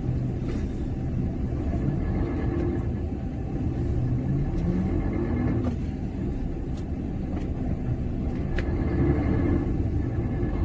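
Heavy truck's diesel engine running under load, its pitch rising and falling a few times as it is revved, while the truck tries to pull free of the deep snow it is stuck in.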